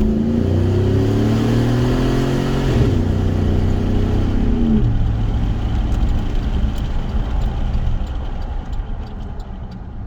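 Chevrolet Avalanche's V8 engine accelerating hard under a throttle controller set to its most aggressive mode. Its pitch rises for about five seconds, falls sharply at an upshift, then runs steadier and quieter.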